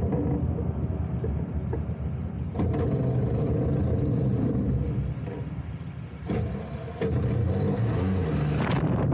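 Badland F3 ultralight's engine and propeller running near the microphone. The engine note drops for a second or two past the middle, blips once, then picks back up.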